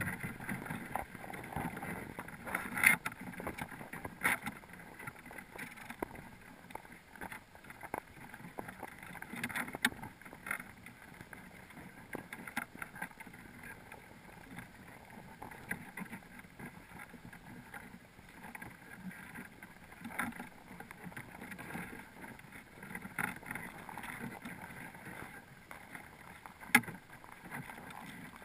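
Muffled underwater noise heard through a camera's waterproof housing, with scattered sharp clicks and knocks as crabs clamber over the camera and the crab pot. The loudest knocks come about three seconds in and near the end.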